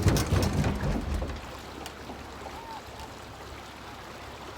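Knocks and a low rumble as a small boat comes off its trailer into the sea. After about a second and a half these give way to the steady wash of water around the hull.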